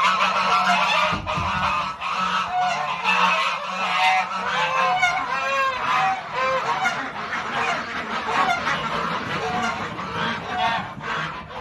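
A flock of domestic fowl calling: many short, overlapping calls one after another, over a steady low hum.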